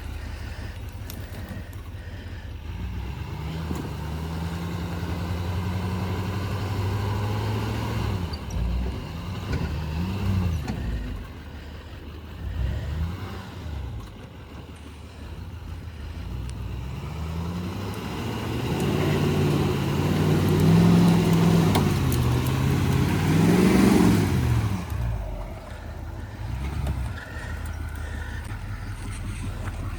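Pickup truck engine revving up and easing off again and again while towing a loaded trailer through deep mud, fighting for traction. The revving is loudest and harshest about two-thirds through, then settles back toward idle.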